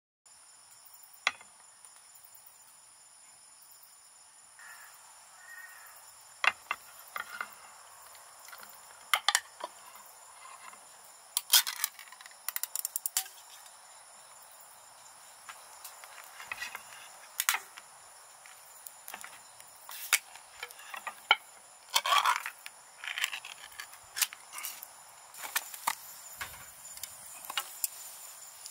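Insects chirping in a steady, high-pitched trill, with scattered sharp clicks and knocks throughout.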